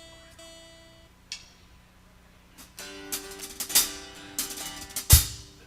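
Loose guitar notes and scattered drum-kit hits, not a song being played: held guitar notes that fade out in the first second, then more notes with cymbal and hi-hat strikes, and the loudest a kick drum and cymbal hit together about five seconds in.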